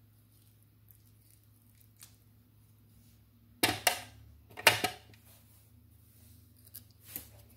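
Kitchen knife with an avocado pit stuck on its blade knocked against a plate to free the pit: two loud bursts of sharp clattering clicks about halfway through, and a fainter click near the end.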